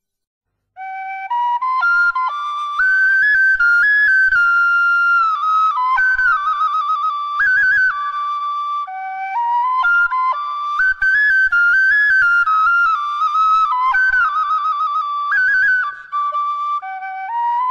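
Solo bamboo flute playing an ornamented melody with quick trills, in phrases broken by short pauses. It comes in after about a second of silence.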